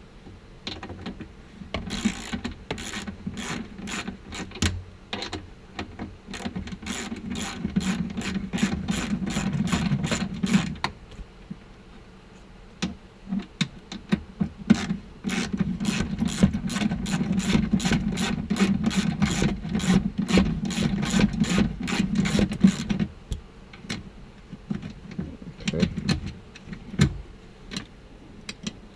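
Ratchet wrench with a 14 mm socket clicking rapidly as it backs out a seat belt's bottom anchor bolt, in two long runs with a pause between them and a few stray clicks near the end.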